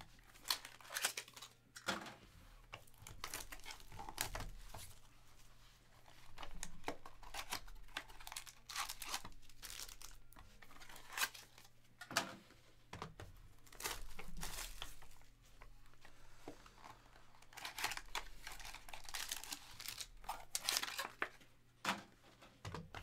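Plastic and foil wrapping on trading-card boxes and packs being torn open and crinkled by hand, in irregular bursts of rustling.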